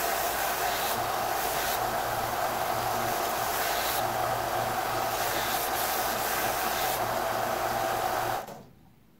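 Small benchtop belt sander running steadily while small glued-up wooden pieces are held against the belt to sand off their corners. Near the end the motor is switched off and winds down.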